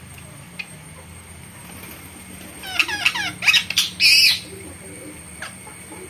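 Birds calling: a quick run of short, falling, high chirps about three seconds in, then one loud high call just after four seconds.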